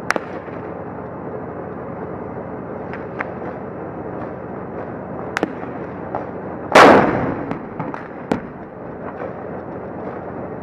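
Combat sounds over a steady background rumble: a few scattered sharp cracks of gunfire, and about seven seconds in one loud, heavy blast that dies away over about a second.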